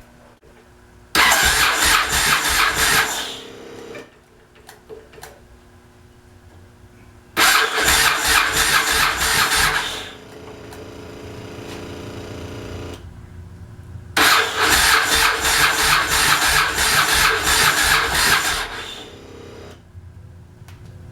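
A 2000 Yamaha Road Star V-twin motorcycle being cranked on its electric starter three times, each burst lasting a few seconds, with a quieter steady hum for a few seconds after the second attempt.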